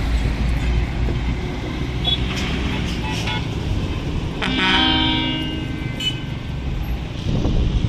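A Hino Bullet coach's horn blows once for about a second and a half, its pitch sagging slightly as it ends, over the steady low rumble of bus engines.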